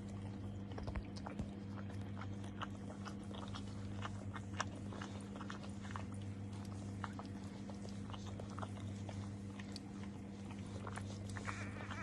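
Scattered small clicks and smacks of a dog's mouth at work, over a steady low hum.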